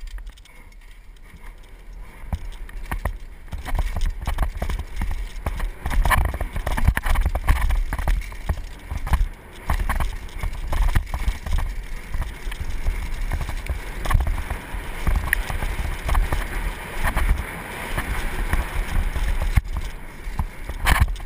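Mountain bike running fast down a rough dirt trail: the frame, chain and parts rattle and knock over bumps, and the tyres rumble on the dirt. Wind buffets the rider-mounted camera's microphone. It gets louder about two seconds in as the speed picks up.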